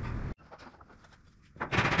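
Impact driver hammering in rapid bursts as it drives a screw through a metal ceiling panel into the framing, starting about a second and a half in.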